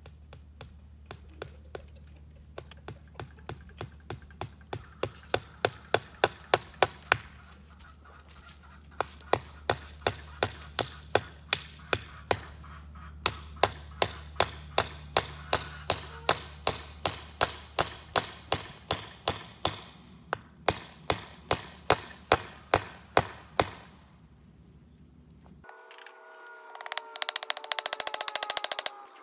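Hammer striking fence staples into a wooden fence post to fasten welded-wire fencing: sharp knocks about two to three a second, in two long runs that start light and grow to hard blows, with a short pause between them. Near the end the sound cuts abruptly to a different, louder noisy sound with a faint pitched tone.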